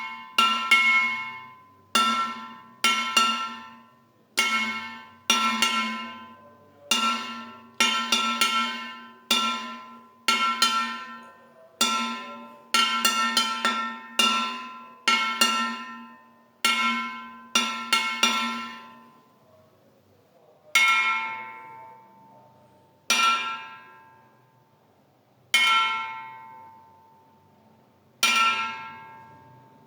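A glass jar struck over and over, each hit ringing at the same bell-like pitch and fading away. The hits come roughly once a second, sometimes in quick pairs, then slow to one every two or three seconds in the last third.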